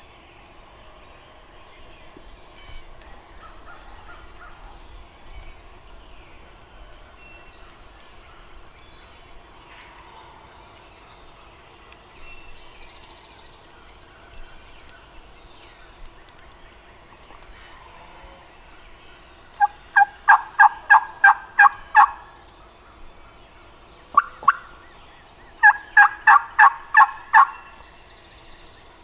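A turkey calling in two loud runs of about ten evenly spaced notes, roughly four a second, one about twenty seconds in and the other about twenty-six seconds in, with one short call between them.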